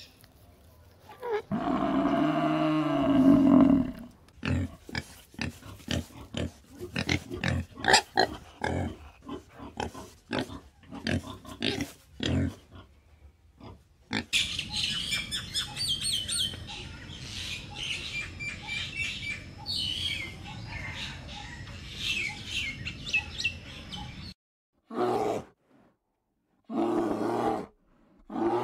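A string of animal calls, with pig grunting among them: a drawn-out pitched call about a second in, then a long run of short grunts, then a busier stretch of higher squeals and grunts. Three short separate calls come near the end.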